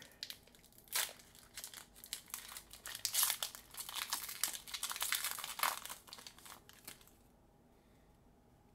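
Foil wrapper of a Pokémon TCG booster pack crinkling and tearing as it is ripped open and the cards are slid out, a dense run of crackles that stops about seven seconds in.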